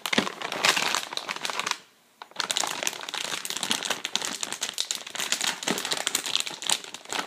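Clear plastic packaging film crinkling and crackling as hands pull and tear it open, with a short pause about two seconds in.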